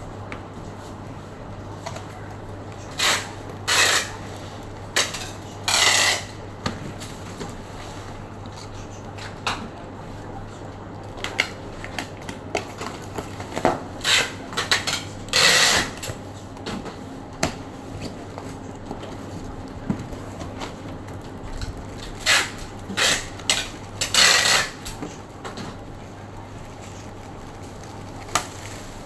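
Intermittent handling noises: short bursts of rustling and clattering, some in quick clusters, as a mini fridge and its packaging are handled. A low steady hum runs underneath.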